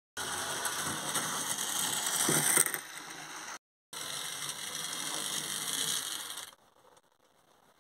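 H0 model steam locomotive's running sound: a hissing, rattling noise that starts abruptly, drops out for a moment about three and a half seconds in, and cuts off about six and a half seconds in.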